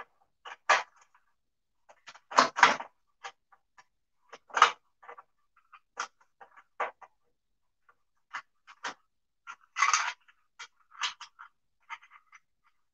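Irregular clicks, knocks and short scrapes of metal parts being handled on a belt-driven sprayer pump as it is fitted and adjusted by hand, with the loudest knocks a couple of seconds in and a longer scrape about ten seconds in.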